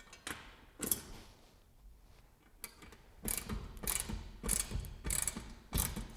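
Socket ratchet clicking through repeated strokes as bolts are tightened into a wall bracket, a stroke about every half second from about three seconds in.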